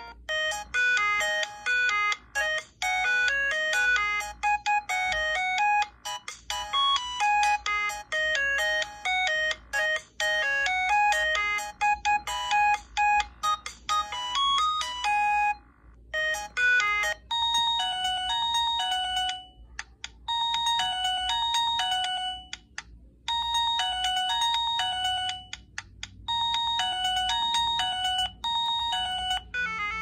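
Two preloaded MIDI ringtones playing one after the other through a Huawei CM295 feature phone's small loudspeaker. The first is a busy, many-note tune lasting about fifteen seconds. After a short pause the second repeats a short phrase of a few notes about four times, with brief gaps between the repeats.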